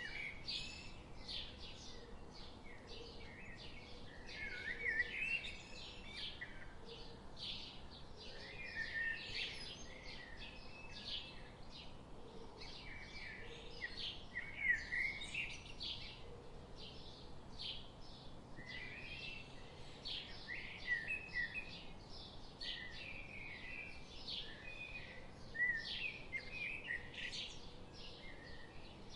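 Several songbirds chirping and singing continuously in a dense, overlapping chorus of short high calls and warbles.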